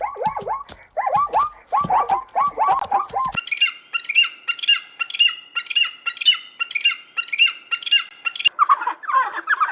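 Repeated bird squawks from two different birds, spliced together. First comes a fast run of short, falling calls. About a third of the way in it cuts abruptly to higher, evenly spaced calls at about two a second. A third animal's calls begin near the end.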